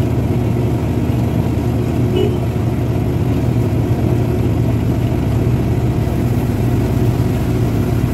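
Loaded truck's diesel engine running steadily on the move, heard from inside the cab along with road noise.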